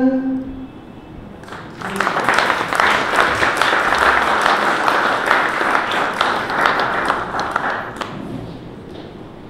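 An audience clapping, starting about a second and a half in, holding for about six seconds, then dying away.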